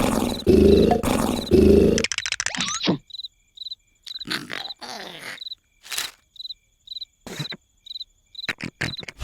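Cartoon snoring: loud, rhythmic snores about once a second that stop about two seconds in. Regular cricket chirps and scattered short noises continue after them.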